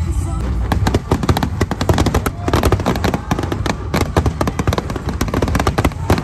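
Fireworks display going off in a rapid, dense barrage of bangs and crackles, many reports a second, building up about half a second in.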